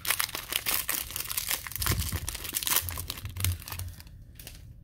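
Foil wrapper of a Donruss Optic football card pack being torn open and crinkled by hand: a dense run of crackling for about four seconds that then dies down.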